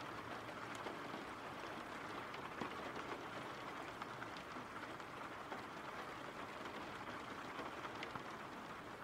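Steady, low rain from a background rain-sound track, with scattered faint ticks of single drops.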